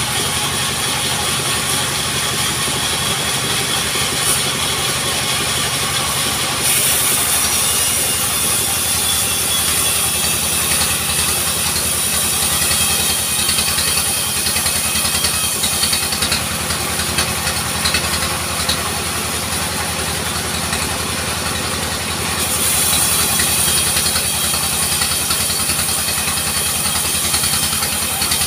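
Sawmill running while a log is fed through the saw: a steady machine drone under a high hiss from the blade cutting wood, the hiss growing louder about six seconds in.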